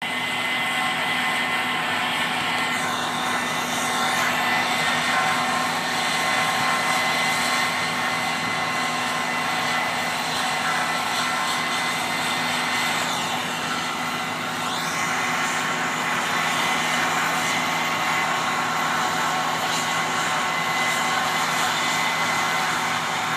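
Combine harvester running steadily, its engine and threshing machinery giving a constant hum with several held tones and a hiss. Twice a hollow sweep dips down and back up in pitch.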